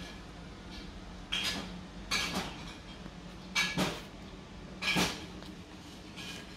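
Stainless-steel manual-pneumatic bottle closing machine being handled: four short metallic clacks and clatters, a second or so apart, as caps are set in its holder and its parts are moved by hand, over a steady low hum.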